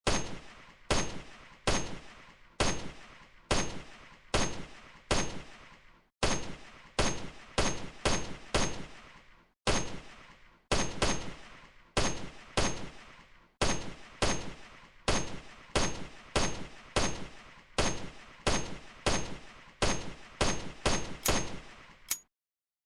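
AKM rifle (7.62×39mm) firing single shots in steady succession, roughly one a second, each shot ringing off in a decaying echo, in strings broken by brief pauses. A short sharp click comes near the end.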